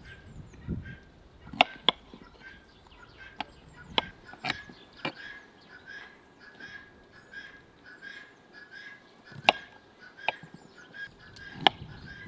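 Kitchen knife slicing peeled raw potatoes on a wooden cutting board: about eight sharp, irregular knocks as the blade meets the board. Birds chirp steadily throughout.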